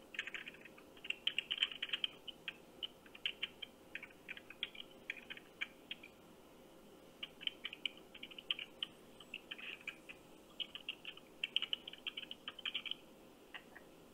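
Computer keyboard typing heard over a phone call's speakerphone: quick runs of key clicks with short pauses, thin and tinny, ending near the end with one last stray click.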